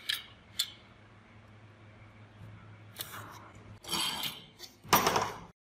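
Small steel lock parts clicking against a hard worktop as they are handled and laid out. About four seconds in and again about a second later come two louder, rattling clatters as abrasive grinding discs are set down beside them.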